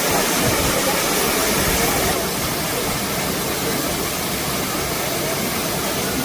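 Steady rush of water from a waterfall, a little quieter after about two seconds.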